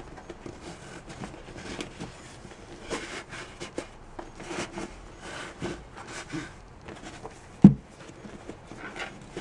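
Hands handling and pressing upholstery material on a mini bike seat base on a wooden workbench: soft rubs, rustles and light knocks, with one sharp low thump, much louder than the rest, about three-quarters of the way through.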